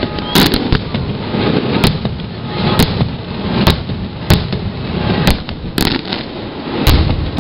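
Aerial firework shells fired from a barge bursting overhead in daylight: about eight sharp bangs at uneven spacing, roughly one a second, with a rumbling echo between them.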